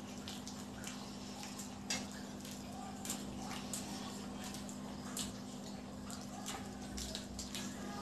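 Close chewing of deep-fried egg devils eaten by hand: scattered small wet mouth clicks and smacks, a couple a second, over a steady low hum.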